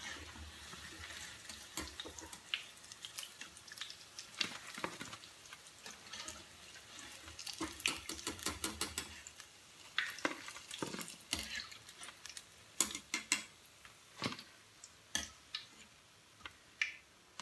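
Hot oil sizzling in a kadai with scattered sharp pops and clicks as half-fried cauliflower pakoras are scooped out with a metal slotted skimmer.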